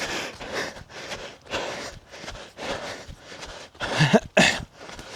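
A man panting heavily as he runs, with breaths coming in a steady rhythm about two a second and a short voiced gasp about four seconds in.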